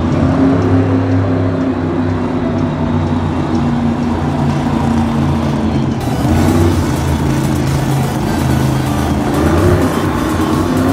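Big engines running and revving, with music playing underneath; the sound changes abruptly about six seconds in.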